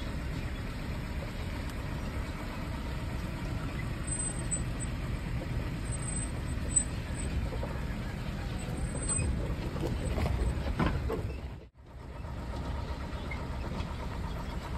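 A car's engine running slowly as it trails a leopard along a dirt track, a steady low rumble. It cuts out for a moment near the end.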